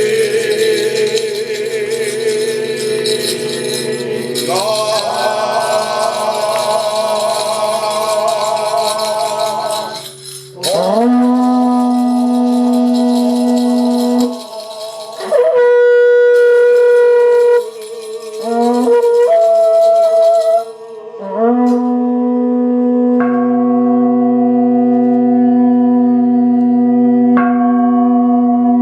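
A wind instrument plays long held notes, each sliding up at its start, over a steady low drone. The first notes waver, and there are short breaks between phrases, about ten and fifteen seconds in.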